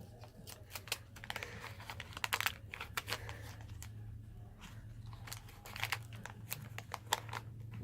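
Wax paper wrapper of a 1981 Donruss baseball card pack being torn open and crinkled by hand, a run of sharp crackles in two main bursts, over a faint steady electrical hum.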